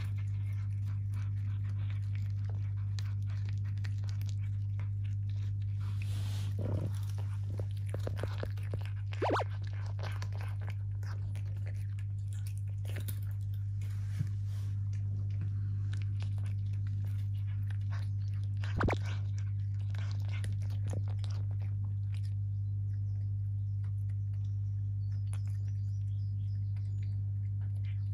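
Cats chewing and crunching treats, imitation crab stick and dried sardines (niboshi), with many small irregular crunches and tooth clicks, busiest in the first half. A steady low hum runs underneath.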